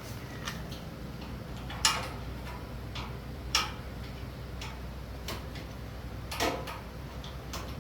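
Irregularly spaced sharp clicks and knocks, about seven of them, as of tools or metal parts being handled during repair work, over a low steady hum. The loudest knocks come a little under 2 seconds in and halfway through.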